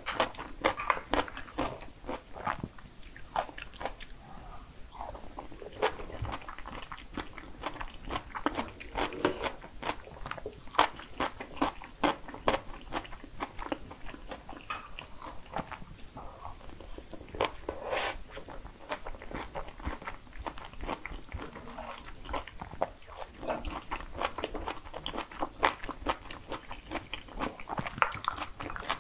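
Close-miked chewing of jajangmyeon, black bean sauce noodles: a steady run of sticky mouth clicks, smacks and small crunches, with a few louder bites scattered through.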